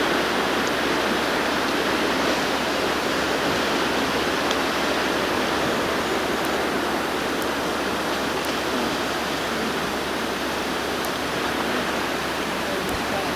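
Wind blowing steadily in a heavy snowstorm: a continuous, even rushing noise.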